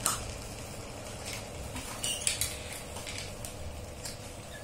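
Small plastic toy pieces clicking and clattering as they are handled and pressed together, a few sharp light knocks scattered over a steady low background noise.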